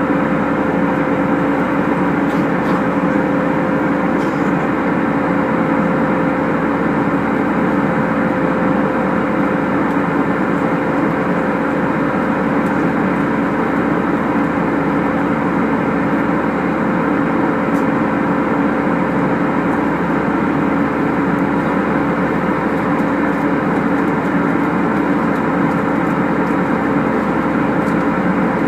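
Steady drone of an airliner in flight heard inside the cabin: engine and airflow noise with a constant low hum, unchanging throughout.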